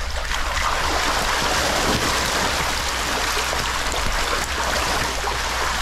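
A crowded mass of African catfish thrashing at the surface of a shallow tank, giving a continuous churning splash of water with constant small crackles. A man wades through the water and stirs it with a stick. A steady low hum runs underneath.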